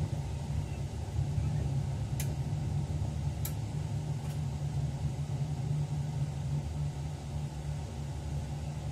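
Steady low rumble of a train running along the track, heard inside the driver's cab, with three short sharp clicks a couple of seconds in.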